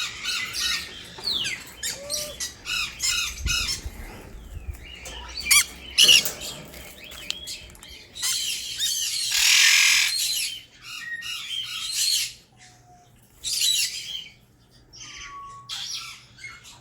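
Suncheek conures giving repeated harsh alarm squawks and chirps while one is being caught by hand, with a loud burst of wing flapping about halfway through.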